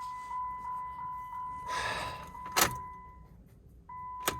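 The 2008 Jeep Wrangler's electronic dashboard warning chime sounding steadily with the key in the ignition, on a Jeep that will not start; the chime breaks off briefly near the end. A short rush of noise and a couple of sharp clicks, like the key and controls being worked, come in the middle and near the end.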